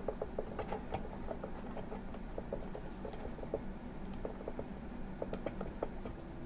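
Light, irregular clicking and ticking, several small clicks a second, from hands working small plastic parts and wire at the end of a plasma tube.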